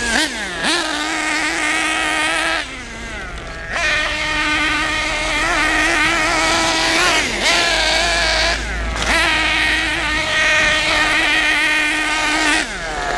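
Kyosho KE21 two-stroke nitro engine in an RC buggy, running with its pitch rising and falling several times as the throttle is worked, and dropping back briefly about three seconds in. It is running rough and rich, which the owner blames on a failed O-ring letting the high-speed needle back out.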